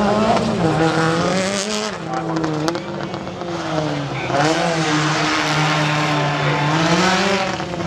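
Subaru Impreza rally car's turbocharged flat-four engine revving hard as the car is driven round a tight cone course, the note climbing and dropping over and over with gear changes and throttle lifts.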